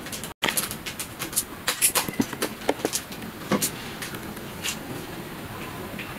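Plastic seasoning sachets crinkling and rustling in the hands, a quick run of sharp crackles that thins out after about three and a half seconds. A brief dropout just after the start.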